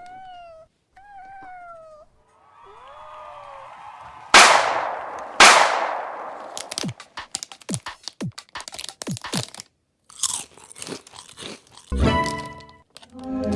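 A rapid string of edited-in comic sound effects: two short pitched whistles, a swirl of gliding tones, two loud crunching crashes about a second apart, then a quick run of clicks, snaps and crunches. Music with held notes comes in near the end.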